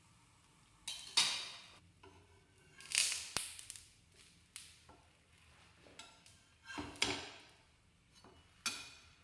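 Kitchen handling sounds: four short scrapes, with light clinks of dishes and utensils between them.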